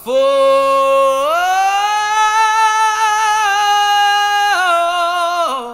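A male singer holding one long sung note: it starts lower, climbs to a higher pitch about a second in and is held with a wavering vibrato, then steps down twice near the end.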